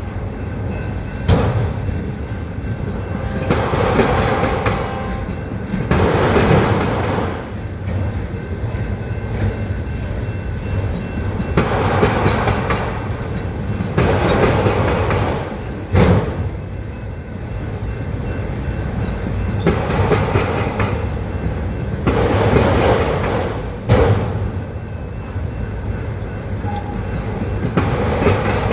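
Autorack freight train rolling past: a steady rumble and rattle of the cars, swelling about every two seconds, with sharp clicks of wheels over rail joints.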